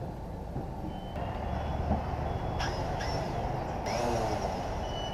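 A few short, high electronic beeps, spaced apart, with a short rising tone about four seconds in, over a low steady hum: the DJI Phantom 3 Standard drone system signalling as it is powered up and linked.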